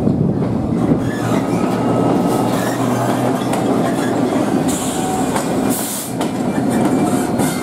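Freightliner Class 66 diesel-electric locomotive running past close by, its two-stroke V12 diesel engine giving a loud, steady low hum over the rumble and clatter of its wheels on the rails, with two short high hisses about five and six seconds in. In the first second, the wheels of a passenger train are heard passing the platform.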